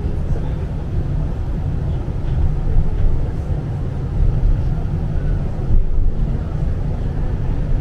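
Steady low rumble of a tram running along its track, heard from inside the passenger car.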